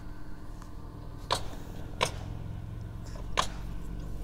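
Three sharp, brief knocks, unevenly spaced about a second apart, over a low steady hum.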